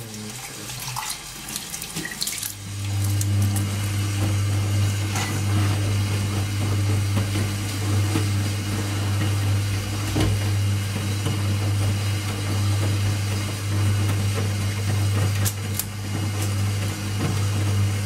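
Hoover HTC247 top-loading washing machine moving water: water rushing through it, joined about two and a half seconds in by a steady low hum that holds to the end.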